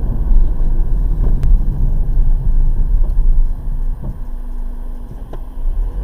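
Car engine and tyre noise picked up by a windscreen dashcam inside the cabin: a steady low rumble that eases off about four seconds in as the car slows for a roundabout.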